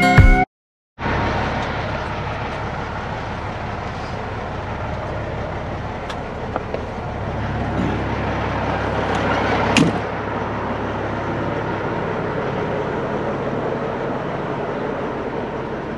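Peterbilt heavy wrecker's diesel engine idling steadily, with a single sharp click about ten seconds in.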